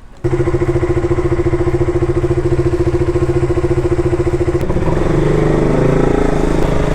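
Motorcycle engine running at a steady, pulsing idle that starts abruptly just after the beginning; about two-thirds of the way through its note roughens and gets slightly louder.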